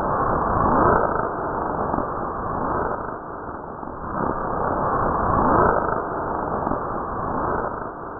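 Synthesized sci-fi 'strange space' sound effect: a dense noisy whoosh with sweeping tones that fall in pitch. It swells twice, about a second in and again about five and a half seconds in.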